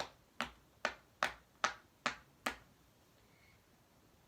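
Silicone pop it fidget toy being pressed, its bubbles popping seven times in a quick even run of about two and a half pops a second, then stopping about two and a half seconds in.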